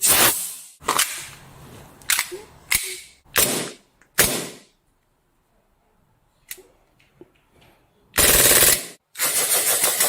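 Toy gun firing: six separate loud shots spread over the first four seconds or so, a faint click, then two longer rapid-fire bursts near the end.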